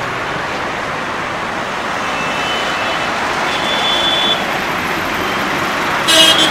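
Road traffic: cars passing at close range, a steady rush of engine and tyre noise. A louder pitched sound cuts in just before the end.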